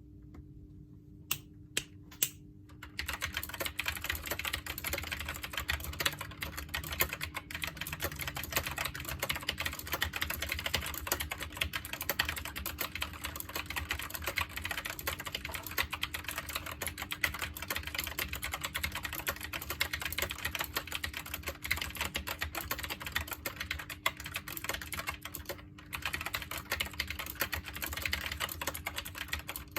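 Typing on a SteelSeries Apex M650 mechanical keyboard: a few single key clicks, then fast, continuous typing from about three seconds in, with one brief pause near the end.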